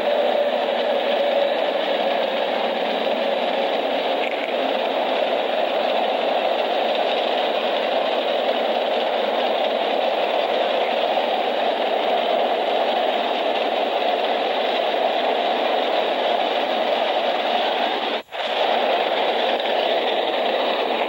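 Steady running noise of a Frisco diesel freight train passing, heard on a thin, muffled old film soundtrack. The sound drops out for an instant about three seconds before the end.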